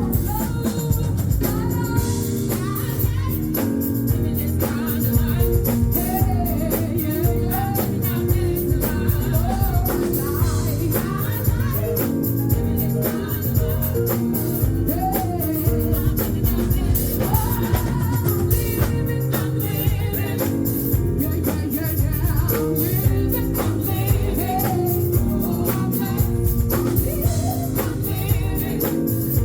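A woman singing a gospel song live, backed by a full band with drums.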